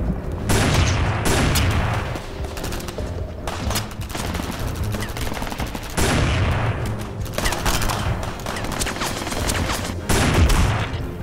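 Rapid, sustained gunfire in a film shootout, shot after shot with hardly a gap, growing louder again about six and ten seconds in.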